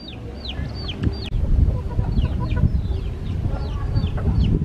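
Steady low rumble of a jet airliner's engines climbing away at a distance, with short, high chirps from birds repeating over it, each one falling in pitch.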